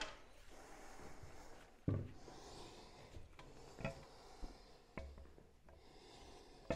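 Faint rubbing and a few light knocks as a Honda CT70's front wheel and axle are worked into place between the fork legs. The clearest knock comes about two seconds in.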